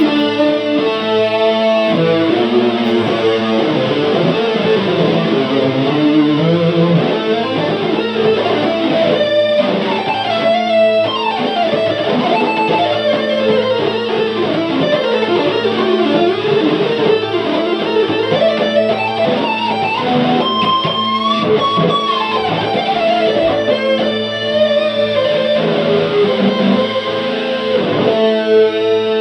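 Electric guitar played with effects: a steady held chord underneath a wandering lead line that glides up and down in pitch.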